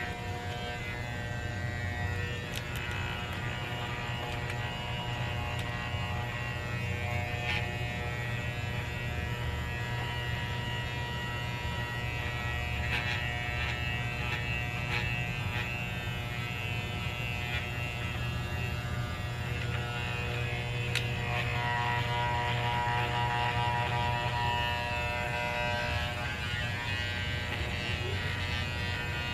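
Electric pet hair clippers running steadily with a buzzing hum while a small dog's coat is shaved, with a few faint clicks.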